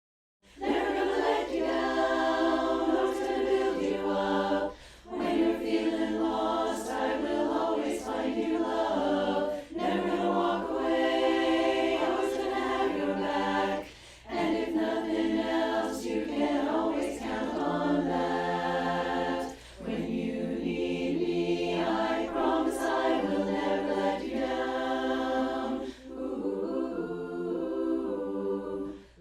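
Virtual choir singing unaccompanied in close harmony, in sustained phrases broken by short breaths every few seconds.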